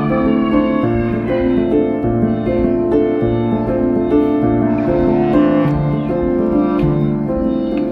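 Background music: steady piano chords over a bass line that steps to a new note about every second.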